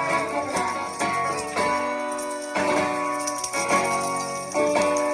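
Ukulele instrumental music with no singing: chords strummed about once a second and left ringing, with a light jingling over them.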